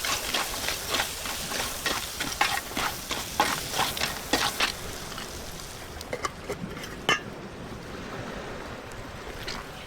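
Cooking over a campfire: quick clinks and scrapes of a utensil stirring in a pan over a steady sizzling hiss. The clicks thin out after about five seconds, leaving a few scattered clicks and a fading hiss.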